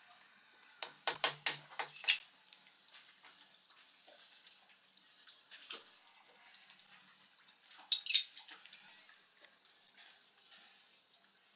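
Sharp metal clicks and clinks from a diesel engine's fuel filter and its metal housing being handled and taken apart with a small tool: a quick run of about six clicks about a second in, then another cluster about eight seconds in, with faint handling rustle between.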